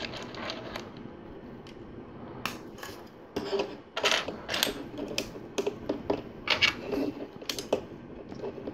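Plastic LEGO pieces clicking and clattering as they are picked from a loose pile on a table and snapped together. Irregular sharp clicks, sparse at first and more frequent from about two and a half seconds in.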